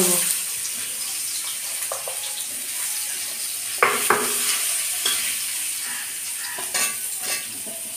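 Sliced onions sizzling steadily as they fry in hot oil in a kadai, stirred with a metal spatula that scrapes and taps against the pan a few times, around the middle and again near the end.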